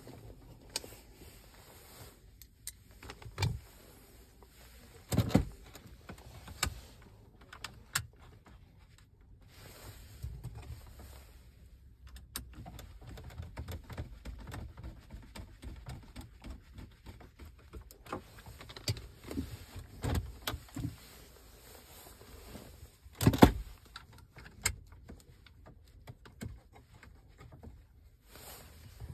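Hands pushing and pressing an RCD330 Plus head unit into its slot in a Volkswagen Golf Mk5 dashboard: scattered plastic clicks and taps, with a louder knock about five seconds in and another about twenty-three seconds in.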